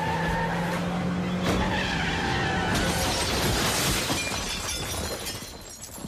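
Movie sound effects of a van skidding on the road with glass shattering, in a dense, noisy crash that builds from about three seconds in and then fades. A steady low hum runs under the first half.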